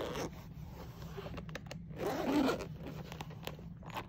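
Heavy-duty YKK zipper on a hard-shell fabric stash case being pulled open in uneven stretches, loudest about two seconds in.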